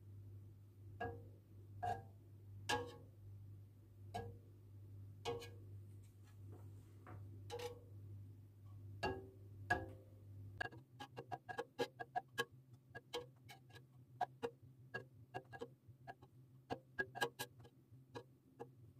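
Faint clicks of a kitchen knife blade touching the stainless steel pot as it cuts through set rennet curd for white cheese: single clicks about a second apart, then from about halfway a quicker run of several clicks a second as the cutting gets finer. A low steady hum lies underneath.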